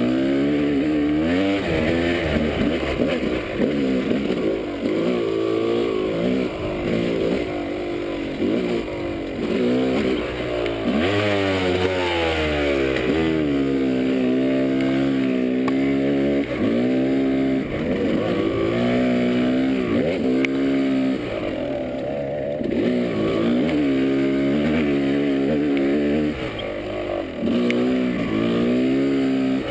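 Dirt bike engine under way on a trail, its pitch rising and falling over and over as the throttle is opened and closed and gears change.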